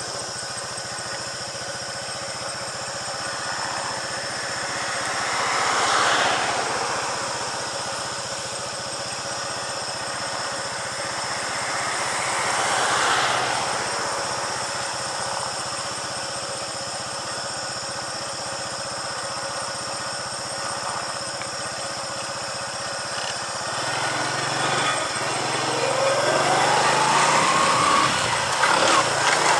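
A vehicle engine idling steadily, with two other vehicles passing by, about six and thirteen seconds in. Near the end the engine grows louder and its pitch rises as the vehicle pulls away.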